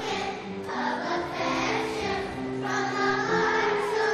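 A choir of young schoolchildren singing an operatic selection together, in long held notes.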